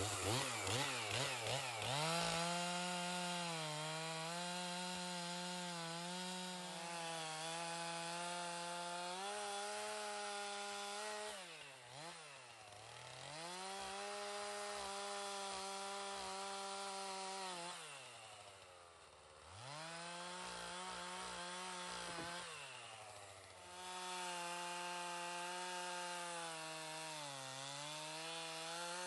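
Chainsaw bucking a felled poplar log into saw logs: the throttle is blipped up and down at first, then held at high revs through long cuts, dropping back toward idle three times between them.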